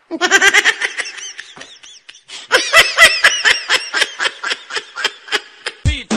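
Canned laughter sound effect: a high-pitched, rapid giggling laugh in two runs, the second beginning about two and a half seconds in. A music track with a heavy bass beat comes in near the end.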